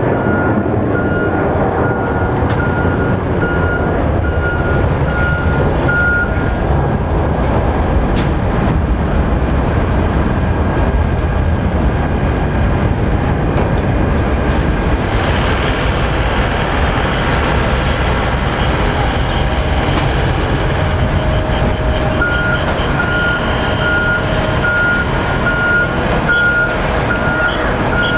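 Boeing 767-300 airliner climbing out after takeoff: steady, loud jet engine roar with a deep rumble. A repeated electronic beep, about two a second, sounds for several seconds at the start and again in the last few seconds.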